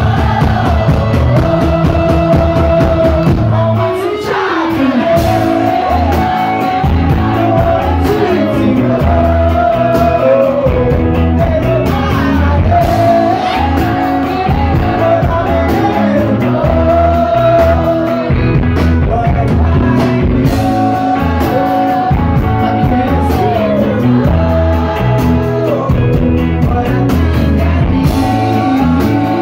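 Live rock band playing loud: a male singer's lead vocal over electric bass and a steady drum beat, heard from the audience.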